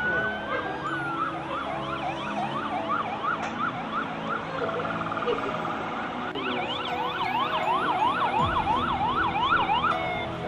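Several emergency vehicle sirens sounding at once. A long wail gives way to rapid up-and-down yelp sweeps, which quicken and grow louder about six seconds in.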